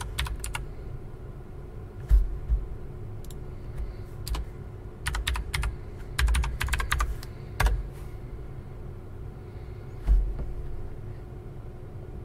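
Typing on a computer keyboard: clattering keystrokes in short, irregular bursts, with one louder click about ten seconds in.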